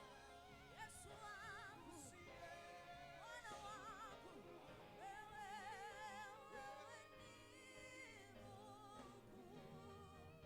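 Soft worship music in a church service: a singing voice with strong vibrato over accompanying instruments, with a few light cymbal-like splashes.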